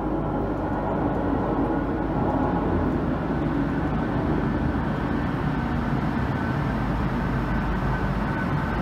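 MTR M-Train electric multiple unit running through the station without stopping: a steady rumble of wheels and running gear coming from the tunnel, with a thin high whine that grows near the end as the train reaches the platform.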